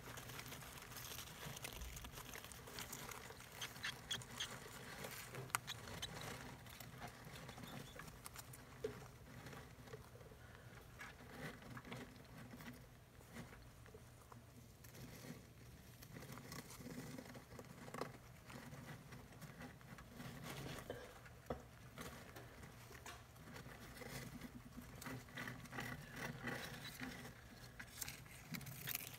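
An African soft-furred rat shifting about in a nest of shredded newspaper: faint, irregular rustling of the paper with small scratchy clicks, busier near the start and again near the end.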